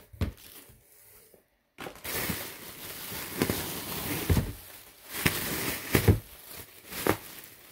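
Inflated plastic air-pillow packing crinkling and rustling as hands shift it around inside a cardboard shipping box. It starts about two seconds in and carries several louder crunches and bumps.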